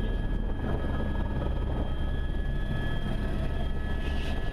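Écureuil helicopter heard from inside the cockpit: a steady low rotor beat with a constant high whine over it.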